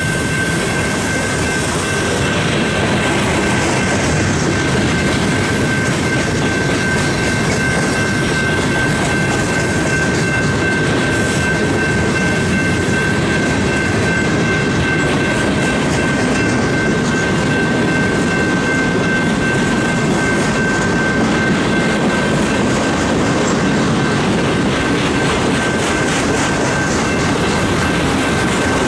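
Loaded flatcars of a freight train rolling past close by: a steady rumble and clatter of steel wheels on the rails, with a steady high-pitched tone over it.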